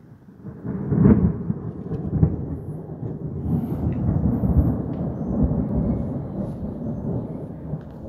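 Thunder rolling: a sharp clap about a second in and another about two seconds in, then a long deep rumble that swells again and slowly dies away.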